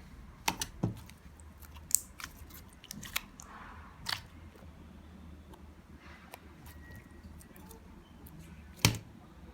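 Slime being squeezed and poked, giving irregular sharp pops and clicks, with the loudest pop near the end.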